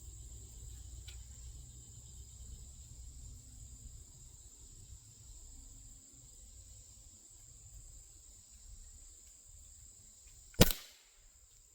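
Benjamin Prowler .22 break-barrel nitro piston air rifle firing a single shot near the end: one sharp crack with a brief ring after it. Before it, a steady high drone of crickets.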